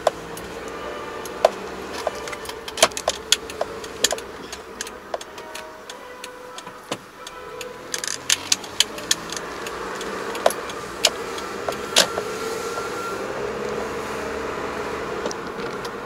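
Car driving, heard from inside the cabin: steady engine and road noise, with sharp clicks and rattles from loose things in the car at irregular intervals, most thickly about eight to nine seconds in.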